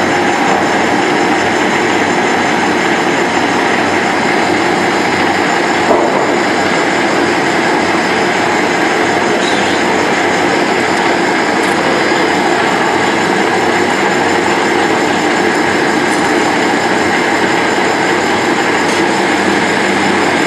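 High-speed hydraulic thread rolling machine running, its grooved roll dies turning as they roll threads onto a steel bar. The noise is loud, dense and steady.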